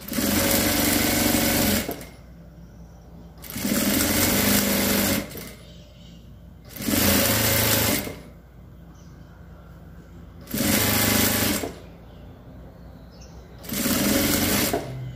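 Jack industrial straight-stitch sewing machine stitching a long seam in a fabric strip. It runs in five short bursts of a second or two each, stopping between them while the fabric is guided, with a faint low hum in the pauses.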